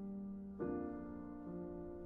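Slow background music on a piano-like keyboard: held chords, with a new chord struck about half a second in.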